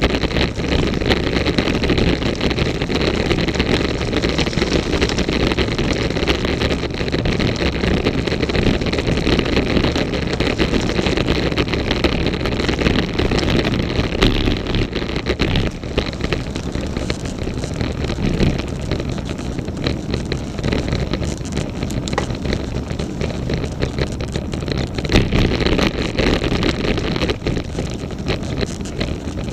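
Road bike in motion, with steady wind and road noise and frequent small clicks and rattles; the larger rattle is the top tube bag, while a ticking click on the bike has a cause the rider cannot find.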